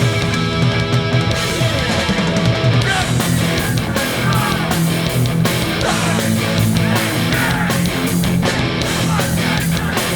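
Hardcore punk band playing live at full volume: distorted electric guitars, bass and drums driving through a song.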